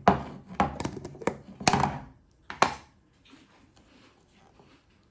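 Kitchen container and utensils being handled: about six sharp knocks and clatters in the first three seconds, then faint handling rustle.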